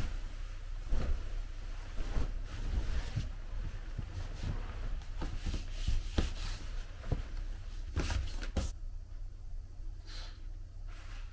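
Bedding and a fleece robe rustling as a person gets up from a bed, with soft knocks and footsteps on the floor, over a low steady hum. Near the end a curtain is pulled aside at the window.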